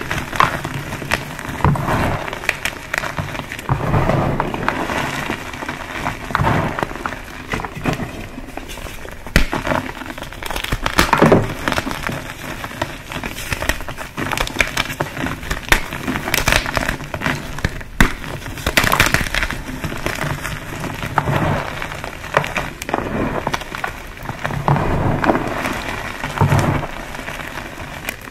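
Pasted gym chalk blocks being crushed, a continuous run of dry crunches and crackles with louder crunches every couple of seconds.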